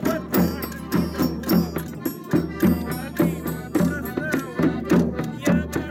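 Portuguese folk music: a button accordion plays a tune over a steady percussion beat of about two strokes a second, with a man's voice singing a desgarrada verse over it.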